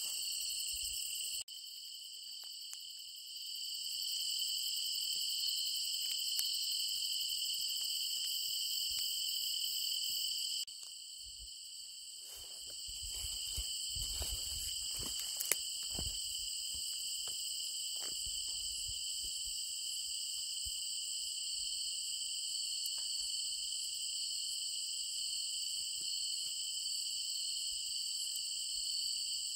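Steady chorus of crickets and other night insects, a continuous high-pitched shrilling in several layers. It drops in level abruptly twice, near the start and about a third of the way in, and a few faint knocks and rustles come through around the middle.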